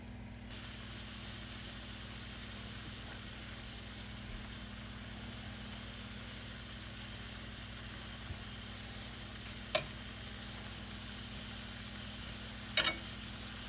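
Butter and tilapia fillets sizzling faintly in a frying skillet, over a steady low hum. Two sharp clicks, about ten and thirteen seconds in, as the butter knife knocks against the pan.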